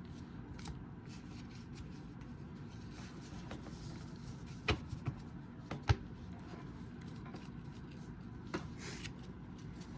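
Basketball trading cards being handled and flipped through on a table: faint rubbing and sliding of card stock, with a few sharp taps, the loudest two about five and six seconds in.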